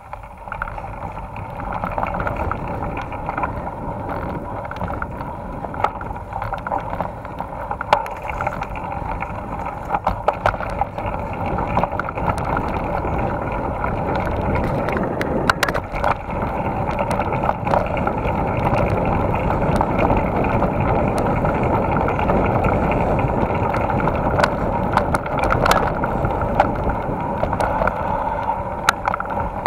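Mountain bike rolling over a dirt singletrack, heard from a camera riding on the bike or rider: a steady rush of tyre and wind noise, broken by frequent short sharp clicks and rattles as the bike goes over bumps.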